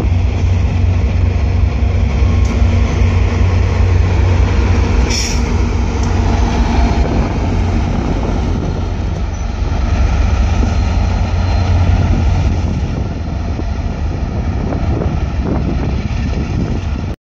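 VIA Rail passenger train rolling past, coaches then its diesel locomotives including a P42DC, with a steady heavy rumble of wheels on rail and wind buffeting the microphone. A brief sharp high sound rings out about five seconds in, and the train noise eases slightly as it moves away near the end.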